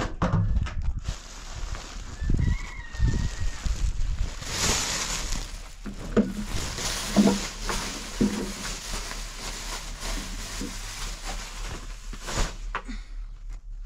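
Chickens clucking, with one short call about two seconds in, over a steady hiss and scattered low knocks.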